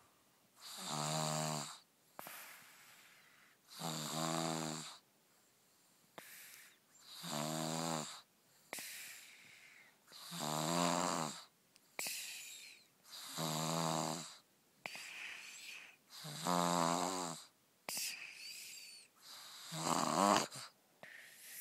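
A man snoring steadily: seven long snores about every three seconds, each about a second long, with softer breathing between them.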